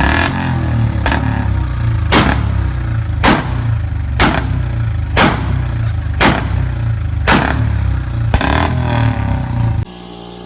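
Motorcycle exhaust running loud, a deep steady note with a sharp crack about once a second; it cuts off abruptly near the end to a quieter steady tone.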